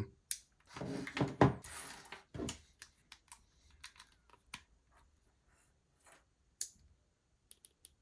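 Rustling and plastic clicks of a Baofeng UV-5R handheld radio and its stock earpiece being handled and connected, then a few short, sharp clicks near the end.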